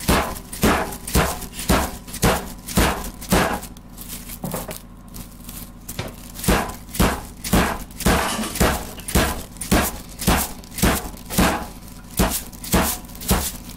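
Dead blow mallet pounding pork loin chops flat through plastic wrap on a countertop. It makes a steady run of thuds about two a second, stops for a couple of seconds partway through, then starts again.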